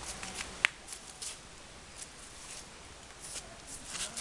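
Footsteps on dry leaf litter: short, crisp rustles at irregular intervals, with one sharp click about two-thirds of a second in.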